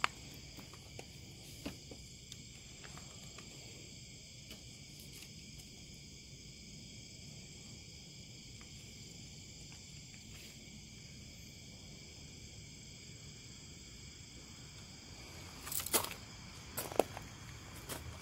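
Steady chorus of crickets trilling, several high-pitched tones held without a break. A couple of sharp clicks near the end.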